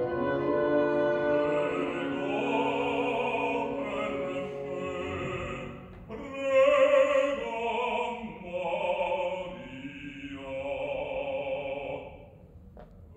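Operatic bass voice singing an aria over a small chamber ensemble of flute, clarinets, bassoon and violin. The voice rises to a loud held note a little past halfway, and the music drops away near the end.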